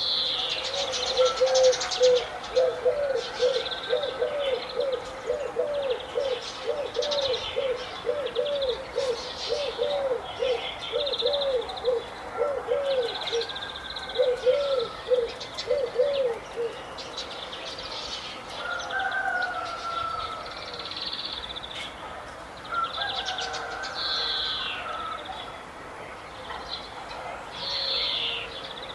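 Several birds chirping and twittering in high, quick phrases, with a run of low, short cooing notes repeated about twice a second that stops a little past halfway.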